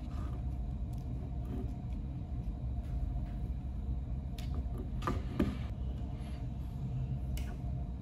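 A small screwdriver working the screw terminals of a magnetic contactor, with a few faint clicks and scrapes about four to five and a half seconds in and once more near the end, over a low steady background rumble.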